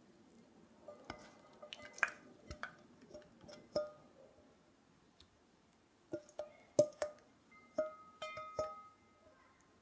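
A spatula scraping thick custard cream out of a stainless steel saucepan: irregular clicks and taps of the spatula against the pan, each setting off a short metallic ring, with one ring held longer near the end.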